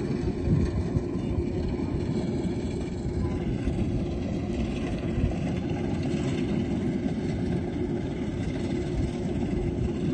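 Kubota rice combine harvester running steadily under load, its diesel engine and threshing machinery giving a constant low mechanical rumble.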